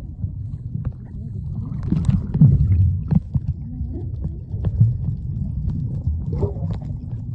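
Muffled underwater sound picked up by a submerged camera: a steady low rumble of moving water with scattered small clicks and knocks.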